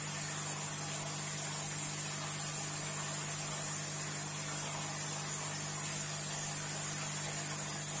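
Steady low hum with a high hiss from running aquarium equipment such as filters and an air pump.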